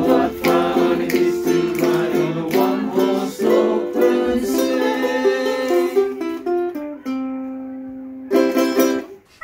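Ukulele strummed in a steady rhythm of chords. About seven seconds in a chord is left ringing and fading, then a final quick flurry of strums cuts off just before the end.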